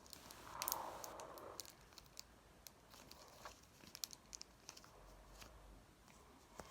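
Faint mixing of a sticky shampoo and talcum-powder slime mixture: a soft squishy rustle near the start, then scattered small clicks and ticks.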